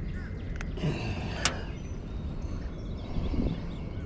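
Handling noise while a crappie is unhooked in an aluminium boat: a few light clicks and knocks, the sharpest about a second and a half in, over a steady low rumble of wind on the microphone.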